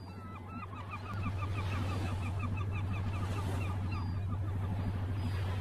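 Gulls calling in quick, repeated cries over the steady low chugging of a boat engine, which gets louder about a second in.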